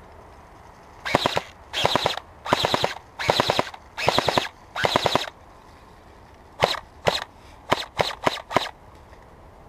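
Airsoft gun firing close by: six short bursts of rapid automatic fire, each about half a second long, followed by six single shots in quick succession.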